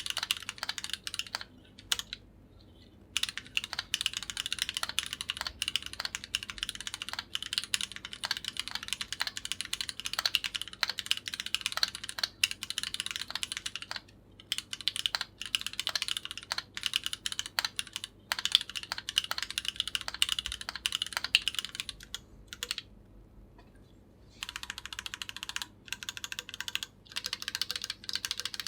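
Keychron Q8 mechanical keyboard with Gateron Oil King linear switches being typed on in fast, steady runs of key presses, with a few brief pauses, the longest for about two seconds near the end.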